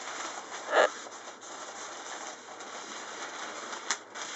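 Delta kite's sail fabric rustling as it is handled and spread out by hand, with a louder swish about a second in and a short sharp tap near the end.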